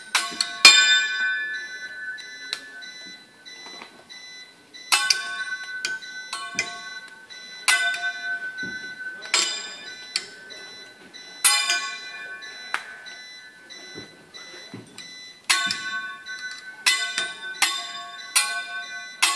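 Teppanyaki chef's metal spatula and fork clanging together in a juggling flourish: irregular strikes that ring out like a bell, some single and some in quick runs of clicks near the end.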